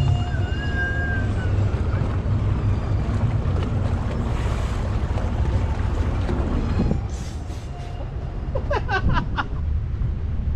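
Wind buffeting the microphone over the low, steady rumble of a houseboat under way.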